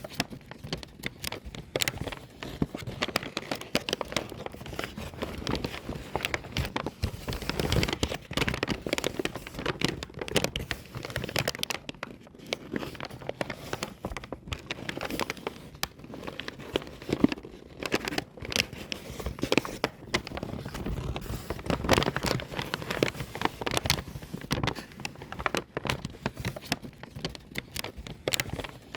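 Paper bag being crumpled by hand: dense, irregular crackling and crinkling that goes on without a break.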